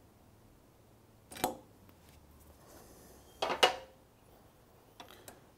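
Circlip pliers clinking against a Brembo four-piston brake caliper and its pads while levering the pistons back into the caliper. A short metallic clatter comes about a second and a half in, a louder one around three and a half seconds, then a few light clicks near the end.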